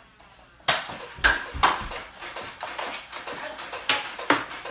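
Irregular sharp clacks and knocks from a Nerf dart battle: blasters firing and foam darts striking. The three loudest come close together in the first two seconds, with a few lighter ones after.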